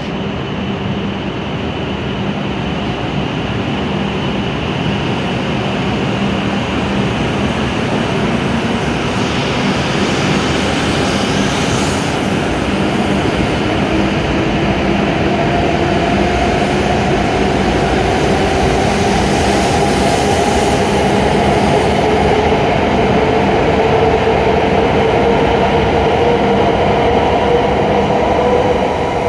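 W7 series Shinkansen train pulling out of a station and gathering speed. Its steady running rumble grows louder, and from about halfway a motor whine rises steadily in pitch as the train accelerates.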